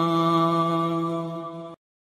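A man's Quran-recitation voice holding one long, steady note, fading and then cutting off abruptly near the end.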